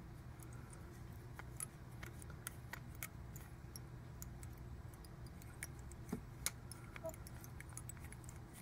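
Faint, scattered small clicks and ticks of fly-tying handwork: tying thread being wrapped from a bobbin to bind a monofilament piece onto the hook in the vise. A low steady hum lies under it.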